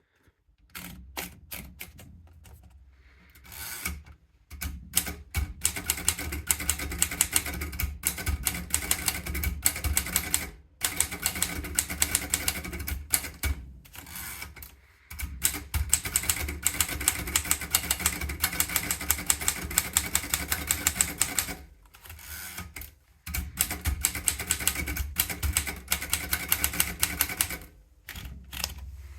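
Royal Portable Model P manual typewriter being typed on: rapid keystrokes in runs of several seconds, broken by brief pauses.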